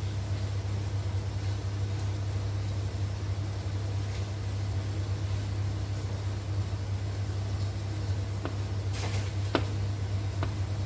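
Wire whisk stirring thick batter in a glass bowl, with a few sharp clicks of the whisk against the bowl near the end, over a steady low hum.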